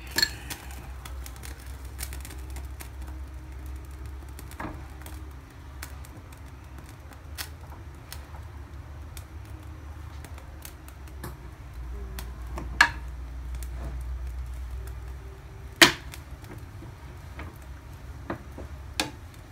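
Metal spoon clinking and knocking against a glass bowl and a nonstick pan as butter is scooped in and pushed around: a handful of sharp clicks spaced several seconds apart, over a steady low hum.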